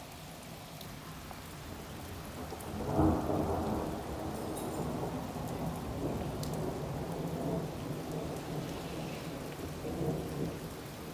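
Thunder from a supercell thunderstorm, rising about two and a half seconds in to its loudest around three seconds, then rolling on as a long rumble that swells again near the end. Steady rain falls throughout.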